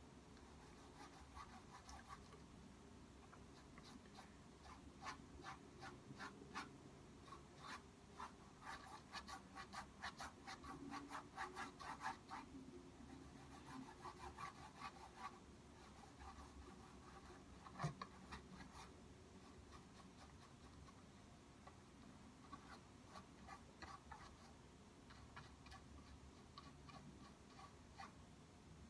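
Faint scratchy strokes of a paintbrush laying oil paint onto a canvas panel, coming in quick runs with pauses between. A single sharper click about eighteen seconds in.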